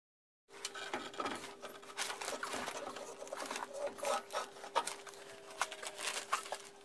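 Metal clicks, knocks and scraping as the pellet boiler's stoker unit is worked loose and pulled away from the boiler, over a steady hum. The sound starts abruptly about half a second in.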